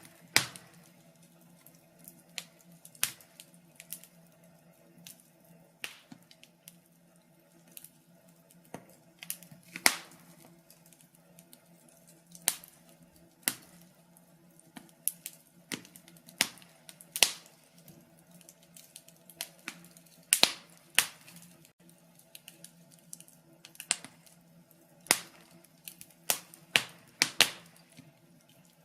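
Wood fire crackling: irregular sharp pops and snaps from burning logs, several clearly louder than the rest, over a faint steady low hum.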